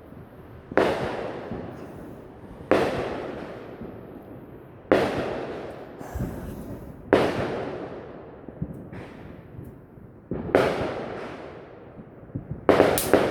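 Consumer fireworks going off: about seven sharp bangs roughly two seconds apart, each trailing off in a long fading tail.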